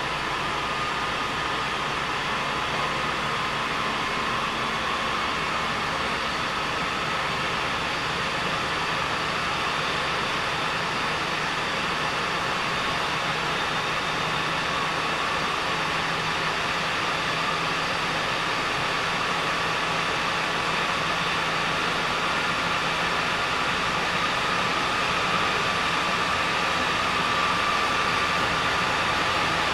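JR West 207 series 1000 subseries (renewed) electric train running along the line, recorded from on board: a steady wheel-and-rail running noise with a faint steady whine, getting slightly louder near the end.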